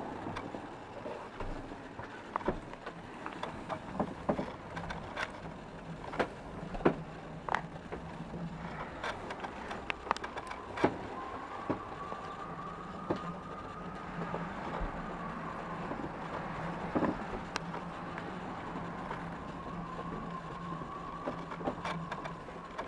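Scattered clicks and knocks from someone moving about a small boat cabin and handling the camera, over a steady low hum. From about eleven seconds in, a faint steady whine joins the background.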